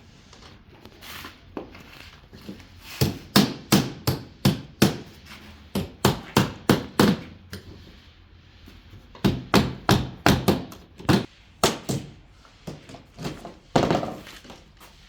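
Hammer blows on a wooden shipping crate, knocking it open: two runs of quick sharp strikes, about two or three a second, with a short pause between them and one louder knock near the end.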